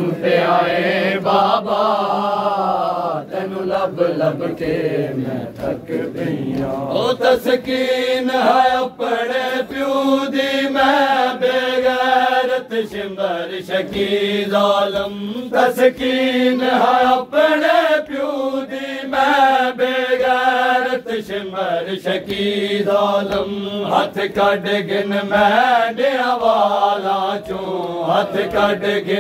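Men chanting a noha, a Shia mourning lament, together in a continuous wailing melody, with hand slaps on chests (matam) keeping time.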